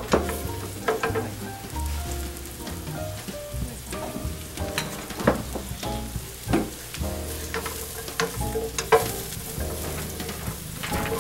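Sliced white mushrooms sizzling in hot oil in a nonstick frying pan as they are stir-fried with a wooden spatula, which scrapes and knocks against the pan several times.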